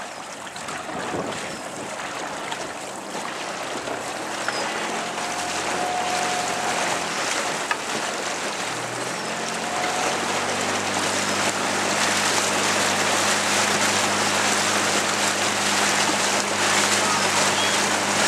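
Wind rushing over the microphone and water noise from a boat moving on open water, slowly growing louder. A steady low motor drone joins about halfway through.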